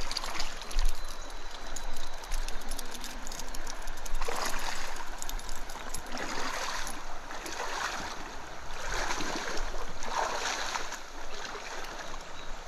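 Stream water running and splashing, with several louder surges of rushing water.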